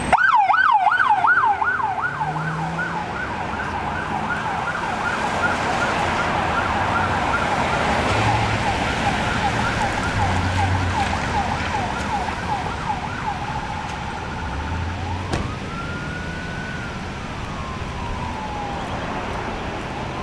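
Police vehicle siren on a fast yelp, warbling up and down several times a second and slowly fading. About three-quarters of the way in, a slower wail rises and falls once, and it starts rising again near the end.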